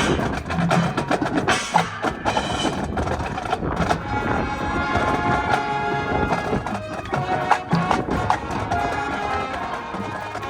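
High school marching band playing its field show: rapid percussion hits over the band in the first few seconds, then held chords from the winds and brass from about four seconds in.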